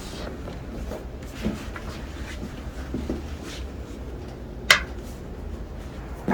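Soft rustling and handling sounds, then one sharp crack about four and a half seconds in and another at the very end: joints cracking during a chiropractic adjustment.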